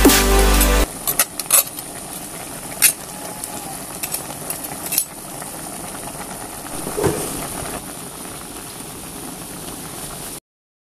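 Electronic music ends about a second in. Then a pot of crab, string beans and squash in coconut milk simmers with a steady hiss, and a metal spoon clinks against the pot a few times.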